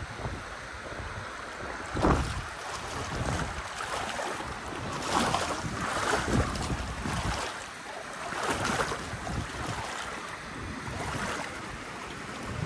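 Gusty wind buffeting the microphone, in several strong swells, over the wash of river water.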